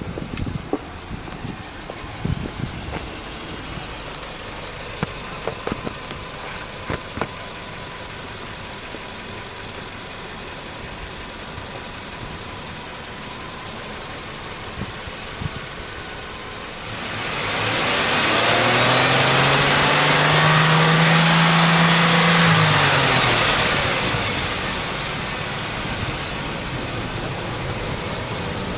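Subaru Impreza Sport 1.6i's FB16 1.6-litre flat-four boxer engine idling, with a few knocks in the first several seconds. About seventeen seconds in, it is revved up with no load, held high for several seconds, then drops back to idle.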